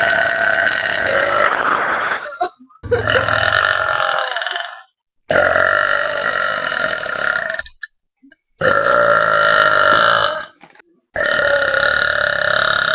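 Loud, long belches by girls, one after another: five in a row, each lasting about two seconds, with short gaps between them.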